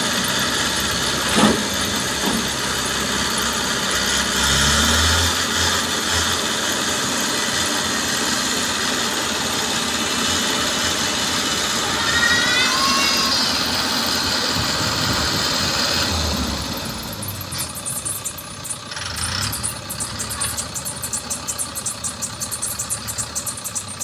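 Diesel engines of a pick-and-carry crane and a road roller running steadily, with the crane pulling the roller on a cable. A brief rising whine comes about 12 seconds in. From about 16 seconds in the sound drops in level and turns into a rapid fluttering pulse.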